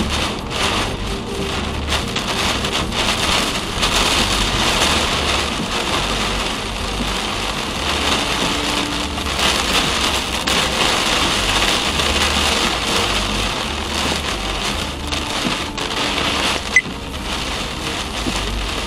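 Heavy rain pelting a car's windshield and roof, heard from inside the cabin, with tyre spray and road noise from the wet road underneath. A single sharp click near the end.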